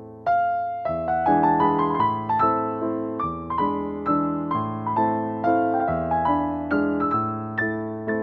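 Background music: a soft keyboard melody of struck notes, each fading away, with new notes about two or three times a second.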